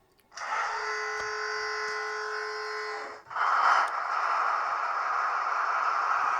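Model railway train running: a steady buzz held at one pitch for about three seconds, then changing to a steady rushing, rattling noise.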